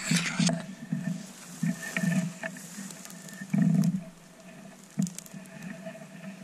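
Muffled handling noise from a camera mounted on a hand-held compound bow: uneven low bumps and rustling as the bow is gripped and moved, with a few sharp clicks.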